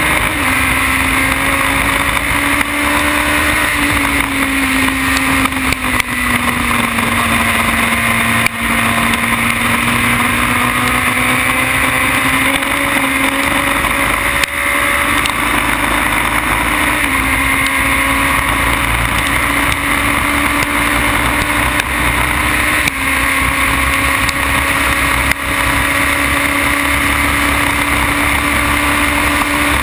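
Onboard sound of a Formula BMW single-seater's 1.2-litre four-cylinder engine running hard at racing speed, with wind rush over the microphone. The engine note sags and climbs slowly through the corners and is broken by a few brief sharp drops.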